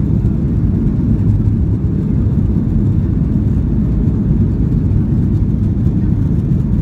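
Boeing 737-800 at takeoff power, heard inside the passenger cabin: its CFM56-7B engines and the wheels on the runway make a steady, loud, deep rumble that does not change.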